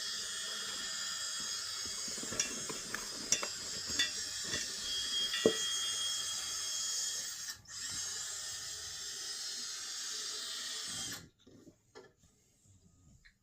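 High-speed rotary tool with a rasping bit whirring as it grinds away material on a subwoofer part, with scattered scrapes and clicks as the bit bites. It stops briefly about seven and a half seconds in, starts again, then cuts off a few seconds before the end.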